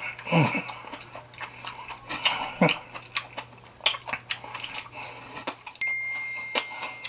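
Cutlery clicking and tapping against a plate or food container as a meal is eaten, with two short vocal murmurs and a thin steady ringing tone near the end.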